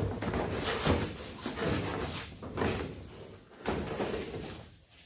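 Cardboard being handled and dragged about, a scraping rustle that breaks off for a moment and then comes back briefly, about four seconds in.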